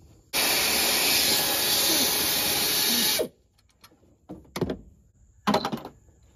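Pneumatic air ratchet running steadily for about three seconds on a fastener and stopping abruptly, followed by a couple of short metallic clanks from the tools and parts.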